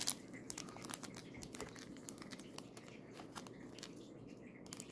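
Foil wrapper of a Pokémon Trick or Trade booster pack crinkling faintly as fingers handle it, feeling for the card line before it is cut, with scattered small crackles and clicks.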